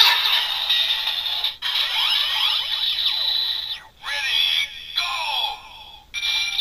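Electronic sound effects from a DX Grease Perfect Kingdom transformation toy's small speaker: quick sweeping synthesized tones that rise and fall, with a few short breaks.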